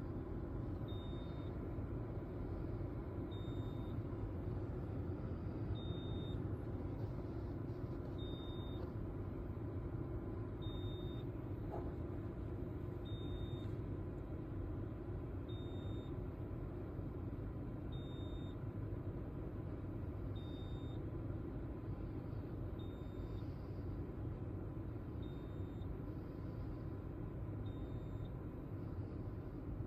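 Polestar 2 electric car sounding a short, high-pitched electronic beep that repeats evenly about every two and a half seconds, over a steady low rumble.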